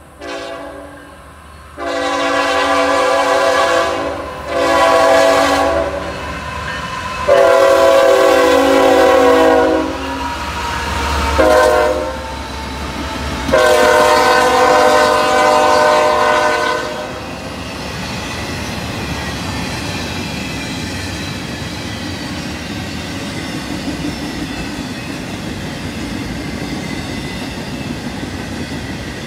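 CSX freight locomotive's multi-chime air horn sounding a series of about five blasts of different lengths, the last held about three seconds. After that the intermodal train keeps rolling by with a steady rumble and clatter of wheels on the rails.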